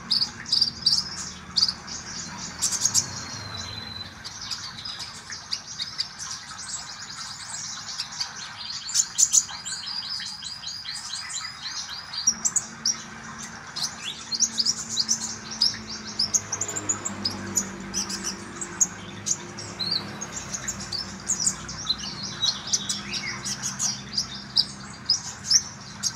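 Olive-backed sunbird (kolibri ninja) singing: high, rapid chirps and twitters with a quick trill about a third of the way through.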